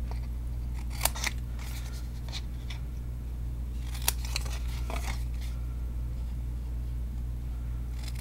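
Scissors snipping through thick white cardstock: a few short, sharp cuts, grouped about a second in and again around four to five seconds in, over a steady low hum.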